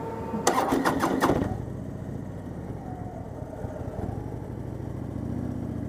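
Harley-Davidson touring motorcycle's V-twin being started: a short clatter of the starter cranking about half a second in, the engine catching after about a second and then idling steadily.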